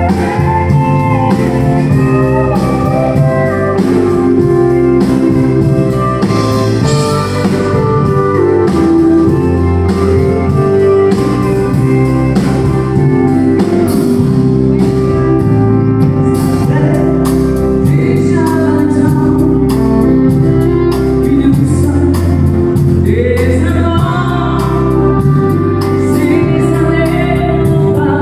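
Live country band music: acoustic guitar and drums with a singing voice, loud and steady throughout.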